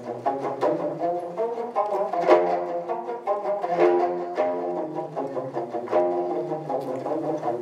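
An ensemble of Korean long zithers playing together, a dense run of sharply plucked notes.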